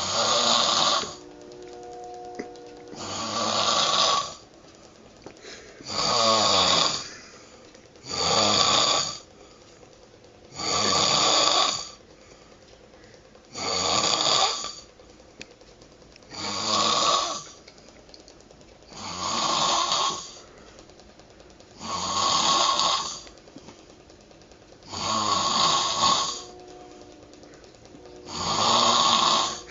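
A man snoring heavily in deep sleep: a loud rasping snore on each breath, about one every three seconds, with quieter gaps between.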